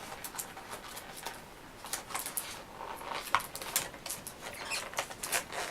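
Retail packaging being pried and torn open by hand: irregular scratchy rustles and sharp small clicks and crackles.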